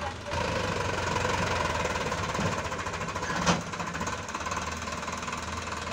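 Sonalika DI 750 III RX tractor's diesel engine working under load as it pulls a loaded trolley, a fast rhythmic knocking that grows louder just after the start. A single sharp knock sounds about three and a half seconds in.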